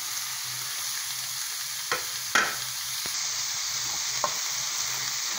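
Onion, carrots, green beans and freshly added shredded cabbage sizzling steadily in hot oil in a metal wok, stirred with a metal spoon. A few sharp clinks of metal on the pan come about two, two and a half, and four seconds in, the middle one the loudest.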